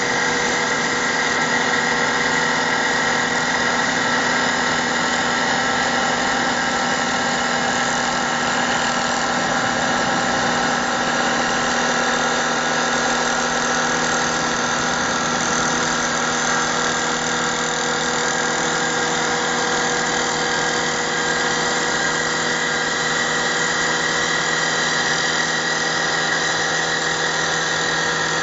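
150S round wood lathe running steadily: a continuous machine drone with several steady tones, including a high whine, holding the same level throughout.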